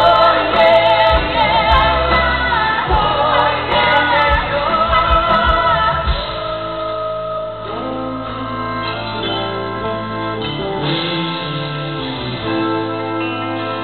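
Live pop song: a woman sings a wavering, vibrato melody over band accompaniment. About six seconds in the voice stops and steady, held organ-like keyboard chords carry on.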